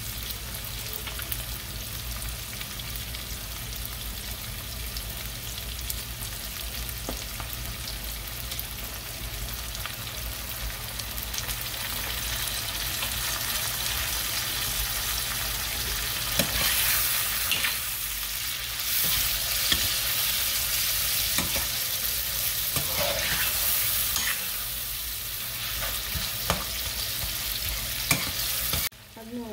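Salted fish with sweet peppers and onions sizzling steadily in a frying pan, getting louder through the middle; a metal spoon knocks and scrapes against the pan a few times in the second half as it is stirred.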